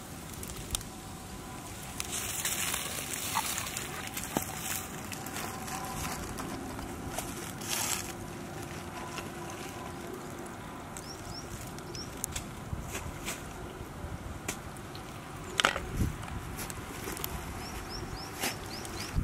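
Outdoor ambience: a steady low rustle with scattered clicks and knocks, the loudest about two-thirds of the way through.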